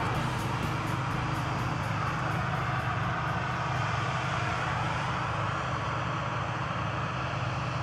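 Heavy farm machinery running steadily, a diesel engine drone with a constant low hum. The tail of a song's beat fades out under it in the first few seconds.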